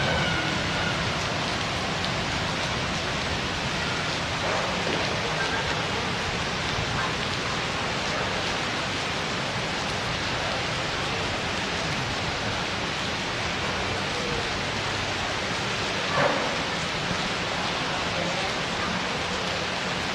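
Heavy rain falling in a steady downpour, with one short, louder knock about sixteen seconds in.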